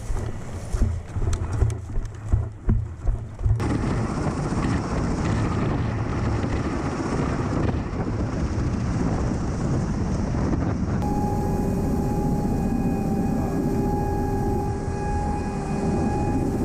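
MV-22B Osprey tiltrotor's engines and rotors: a steady, heavy roar. About eleven seconds in a steady engine whine joins it. The first few seconds are uneven low thumps.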